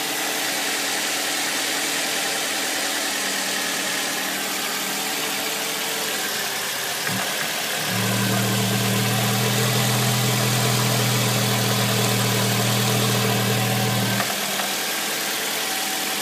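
Nissan Primera P12's 2.0-litre QR20DE four-cylinder petrol engine idling steadily. About seven seconds in there is a click, then a louder, deeper hum joins for about six seconds and stops.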